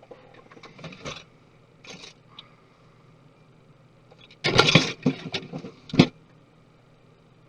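Laptop parts and small tools being handled on a work surface: faint clicks and rustles, then a louder clatter about four and a half seconds in and a sharp click about a second later.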